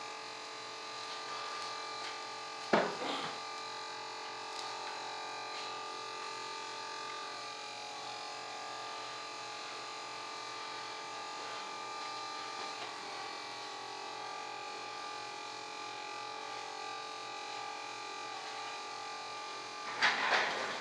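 Small electric fuel pump running steadily as it fills an RC jet's fuel tanks. A single knock comes about three seconds in, and there is some handling clatter near the end.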